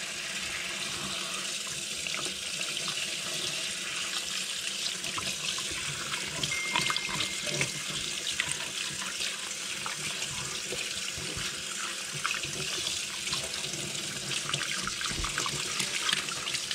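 Kitchen tap running steadily into a stainless steel sink, the water splashing over a fish as it is rinsed and cleaned by hand. Small clicks and knocks of handling sound through it.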